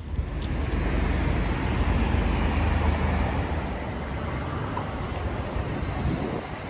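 Vehicle road noise on a wet road: a steady low rumble with tyre hiss, swelling to its loudest about three seconds in and then easing slightly.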